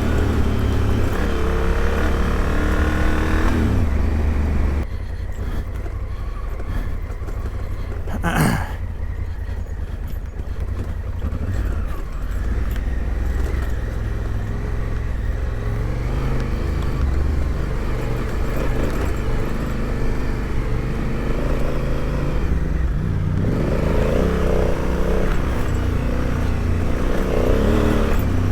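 Adventure motorcycle engine ridden on a rough dirt trail, its revs rising and falling as the rider works the throttle, with steady wind rumble on the microphone. In the middle it runs quieter at low revs, with a single sharp knock about eight seconds in, before revving up again near the end.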